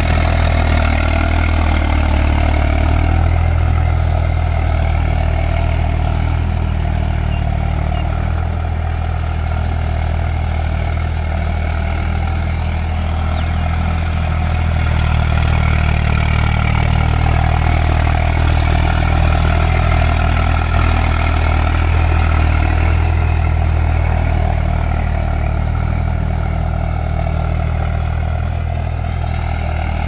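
Eicher tractor's diesel engine running steadily under load as it pulls a tillage implement through a wet, muddy field.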